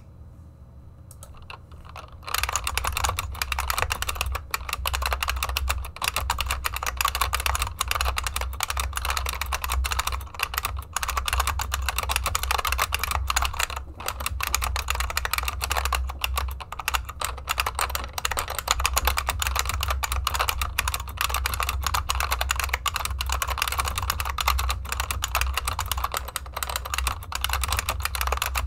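Fast, continuous typing on a Unicomp Model M buckling-spring keyboard whose central keys are floss- and bandaid-modded, giving a clacky sound rather than a metallic spring ping. The typing starts about two seconds in.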